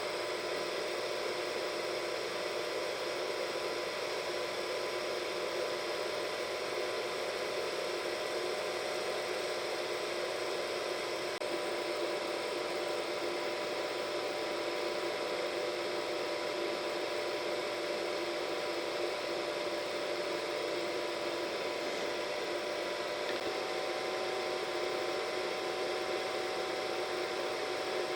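Hair dryer running steadily: an even rush of air with a constant motor whine over it.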